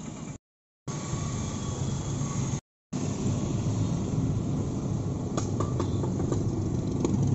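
Car cabin noise while driving: a steady low rumble of engine and tyres on the road. It is broken by two short cuts to silence, about half a second in and just under three seconds in.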